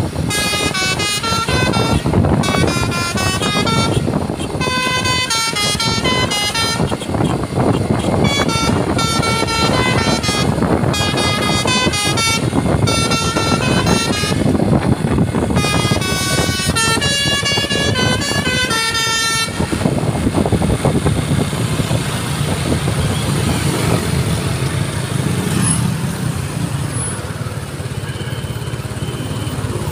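Basuri 'telolet' multi-tone bus horn playing a quick melody of short, changing notes over and over, stopping about two-thirds of the way through and leaving only the steady noise of vehicle engines.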